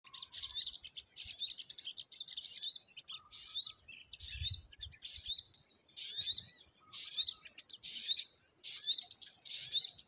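Sunbird song: short, rapid high-pitched twittering phrases repeated about once a second, each ending in quick upswept notes.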